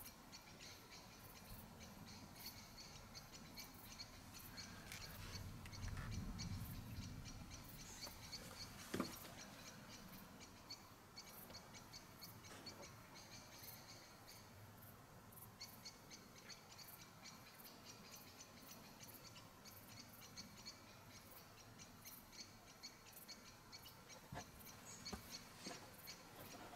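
Faint evening forest ambience: insects chirping rapidly and high-pitched, pausing briefly about halfway through. A low rumble swells and fades around six seconds in, and a single sharp knock comes about nine seconds in.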